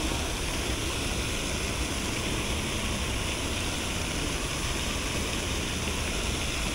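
Steady outdoor rushing noise with a low rumble, as of wind on an action camera's microphone over the spray of a lake's aerating fountain.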